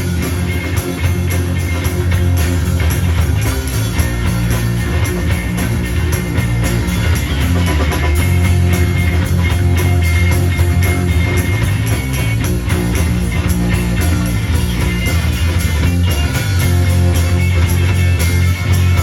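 Live rock band playing an instrumental passage without singing: a heavy bass guitar line carries the low end under electric guitar and a driving drum kit.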